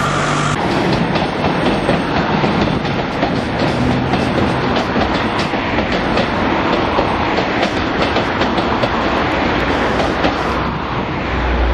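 Melbourne X'Trapolis electric suburban train running past, its wheels clattering in a steady clickety-clack over the rail joints over a continuous rumble. The sound eases off near the end as the train moves away.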